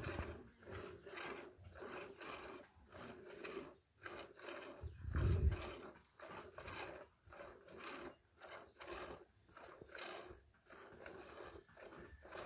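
Cow being milked by hand: jets of milk squirting into a plastic jug in an even rhythm of about two and a half squirts a second. About five seconds in there is a louder, low rumble.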